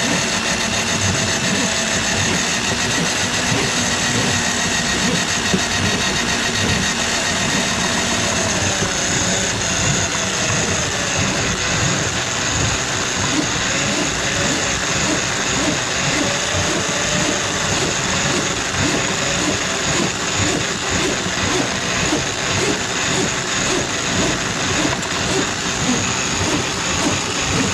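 Handheld electric drum drain auger running steadily with many small clicks, its spinning cable working through a kitchen sink drain line clogged with grease; the motor's pitch wavers for a few seconds about a third of the way in.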